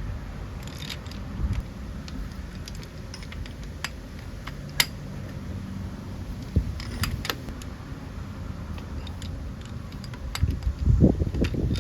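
Hand tools clinking: a socket wrench and sockets handled against the compressor's cover cap screws. There are scattered sharp metal clicks, then a louder stretch of clatter near the end.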